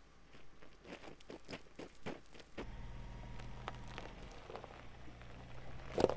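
Footsteps crunching on gravel for the first two and a half seconds. Then a van's engine hums low and steady as the van creeps forward over rocky ground, with scattered crunches under the tyres and one loud crack near the end.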